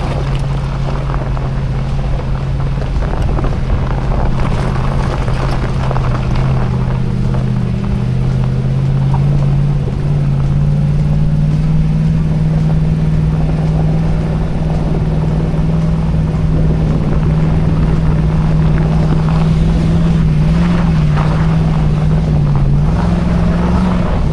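Lexus GX470's 4.7-litre V8 engine running steadily under load, climbing a steep icy trail hill, over a rough haze of tyre and trail noise. The revs rise a little about nine seconds in and waver briefly near the end.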